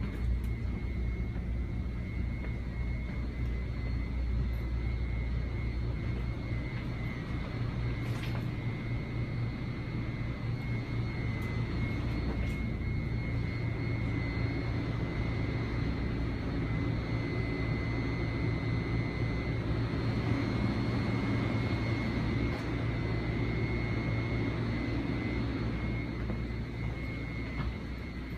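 Steady low hum of a Budd M2 electric railcar's onboard equipment, heard from inside the car, with a thin, steady high-pitched whine over it and a few faint clicks.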